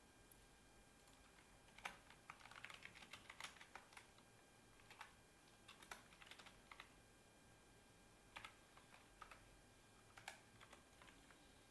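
Computer keyboard typing, faint: a quick run of keystrokes about two seconds in, then scattered single keys.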